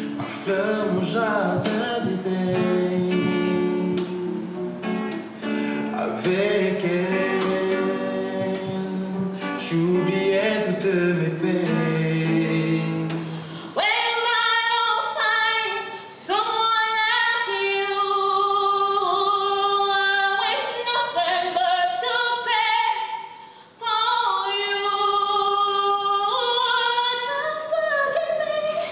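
Music with guitar and singing, then, about halfway through, a woman's solo voice singing unaccompanied into a microphone, with long held, sliding notes.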